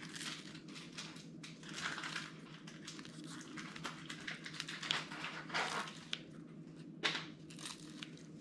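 Kitchen scissors snipping crispy fried breadsticks (youtiao): a string of short crunchy cuts, a second or so apart, over a low steady hum.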